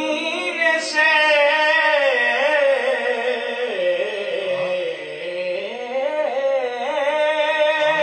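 A man singing a Siraiki naat solo, one long held vocal line whose pitch wavers and slides.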